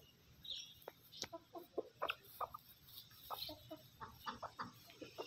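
Domestic chickens clucking: hens and a rooster giving many short, irregular clucks while foraging, with a few higher chirps.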